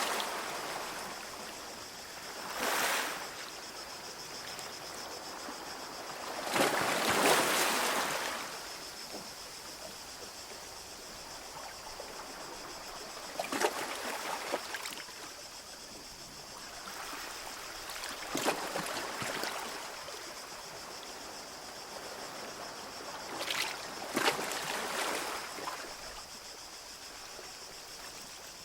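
Small waves breaking and washing up on a beach, one every four to six seconds, with the biggest about seven seconds in, over a steady wash of water.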